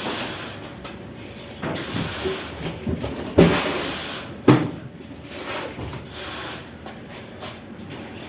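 Heavy CO2 laser cutter being shifted across the floor: four or five rough scraping pushes, each about a second long, with two sharp knocks about three and a half and four and a half seconds in.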